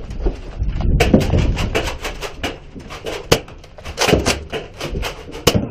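Fast, irregular clicks and knocks over a low rumble, from players rushing into a round of a Nerf blaster fight.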